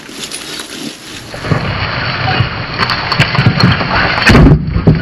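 Old brick garden wall collapsing as it is pushed over by hand: a rising crash of bricks and mortar falling and breaking, with bricks knocking together, building from about a second and a half in to a heaviest thud near the end. The bricks and mortar are in a poor, unstable state and give way easily.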